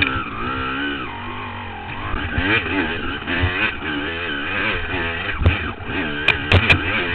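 Honda CR250 two-stroke dirt bike engine revving up and down as the throttle is worked on and off over rough ground, with several sharp knocks near the end.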